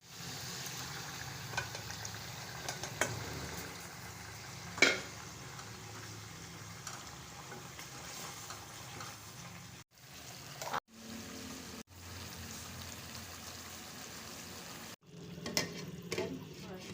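Chicken frying and sizzling in a karahi as it is stirred, with a few sharp clinks of the spoon against the pan, the loudest about five seconds in. The sizzle cuts off abruptly a few times and resumes.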